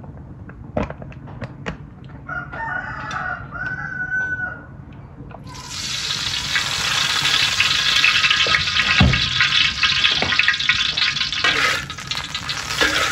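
Cooking oil sizzling in a hot wok as a metal spatula spreads it, starting suddenly about five seconds in and the loudest sound. Before it, a few light clinks of the spatula on the wok and a rooster crowing once for about two seconds.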